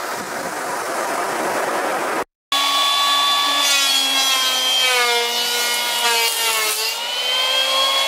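Surf washing in as a wave breaks, cut off abruptly about two seconds in. Then a louder steady motor whine whose pitch sinks slowly and climbs back near the end.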